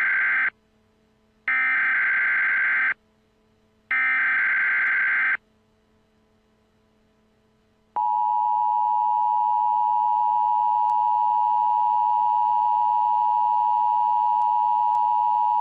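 Emergency Alert System activation tones. The end of one burst of SAME digital header data and two more identical warbling data bursts, each about a second and a half long, are followed by a pause. About eight seconds in, the steady two-tone EAS attention signal (853 and 960 Hz together) starts and holds.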